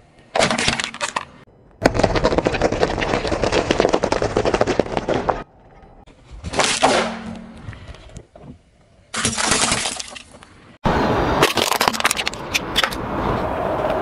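Objects being crushed under a slowly rolling car tyre, in several short separate takes: cracking, crunching and crackling as plastic and packaging break. The longest is a dense crackle lasting a few seconds.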